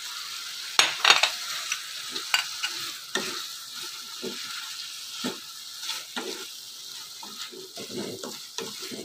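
Chicken pieces in oyster sauce sizzling in a frying pan as a wooden spatula stirs them. Irregular knocks and scrapes sound against the pan, the sharpest about a second in, while the sauce cooks down.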